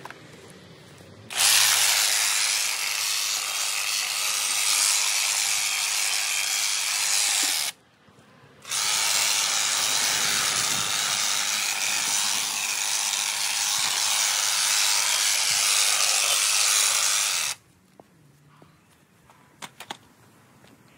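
Honda HHH 36 AXB cordless battery hedge trimmer running and cutting through a hedge, in two long runs with a pause of about a second near eight seconds in. It stops about seventeen seconds in, followed by a few light clicks.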